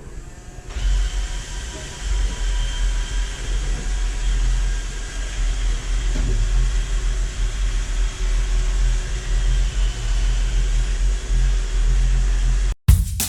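iRobot Roomba 696 robot vacuum running, a steady motor and brush hum with a low rumble and a faint high whine. It cuts off abruptly near the end, and drum music starts.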